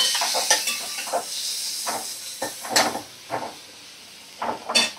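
Chopped tomato and green chilli in hot oil with fried onions in a kadai: sizzling that dies down over the first couple of seconds, while a spatula scrapes and knocks against the pan about six times.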